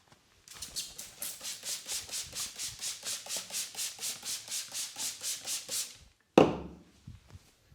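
Fast, even rubbing strokes of a head massage, about four a second for some five seconds, then a single loud slap.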